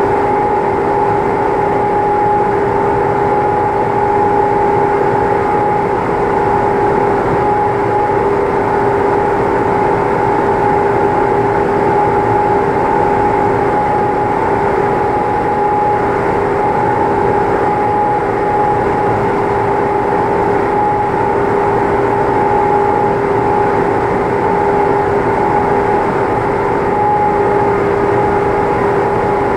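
Steady machine hum with a constant whine, unchanging throughout.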